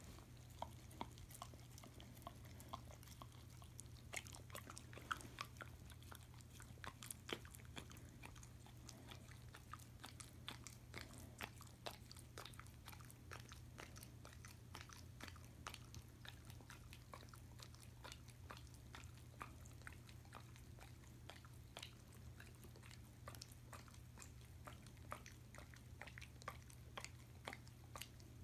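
German Shepherd licking and smacking at peanut butter on a spoon: faint, irregular wet mouth and tongue clicks, with a steady low hum underneath.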